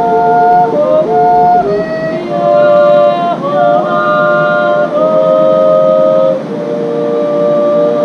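Two women singing a Swiss folk song in two-part harmony, holding long steady notes that change in steps, ending on a long held chord from a little past six seconds.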